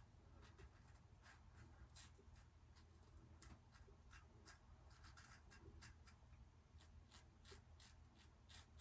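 Faint scratching of a 3D-printed open comb injector razor cutting through a few days' beard stubble, in short strokes a few times a second.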